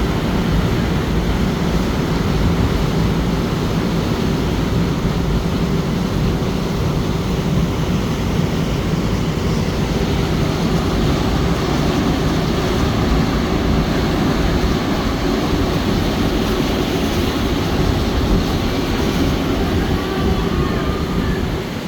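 River motor ship's engine running underway: a steady low drone with an even hum, no change throughout.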